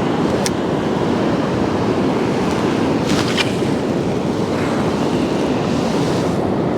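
Steady rush of a shallow river's current flowing over rocks, with a few faint clicks about half a second and three seconds in.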